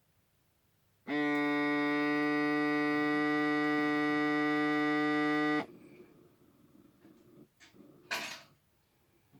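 Electronic alarm buzzer of a Neutronics Ultima ID Pro refrigerant identifier sounding one long, steady, buzzy tone for about four and a half seconds, the analyser's error alarm. A few faint clicks and a brief hiss follow.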